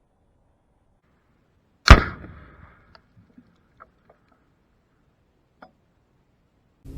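A single loud blast about two seconds in, trailing off over most of a second: the detonation of about four pounds of Tannerite packed in a buried pipe, set off by a rifle shot. A few faint ticks follow.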